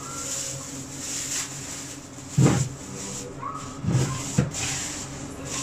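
A few dull thumps, about two and a half, four and four and a half seconds in, the first the loudest, over a steady low hum.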